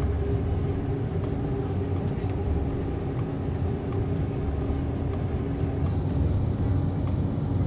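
Airliner cabin noise in cruise at about 30,000 ft: a steady low rumble with a couple of faint, even hums above it.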